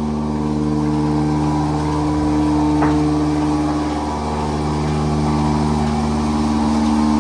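Bucket milking machine's vacuum pump running with a steady hum, with a single short click about three seconds in.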